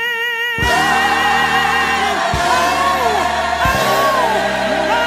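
Gospel singing with a band: a held sung note with vibrato, then about half a second in the band comes in with a drum hit and a bass line while the voice slides up and down through runs. Further drum hits come twice more.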